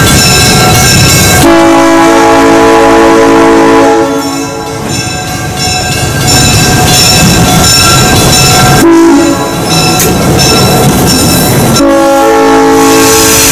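Diesel switcher locomotive sounding its horn as it approaches and passes: a long blast about a second and a half in, a short one around nine seconds, and another long one starting near twelve seconds. The engine's diesel running and the train's wheels on the rails are heard throughout.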